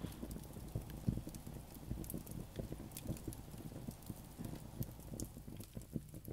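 Wood campfire crackling faintly under a kettle: scattered small pops and ticks at an uneven pace.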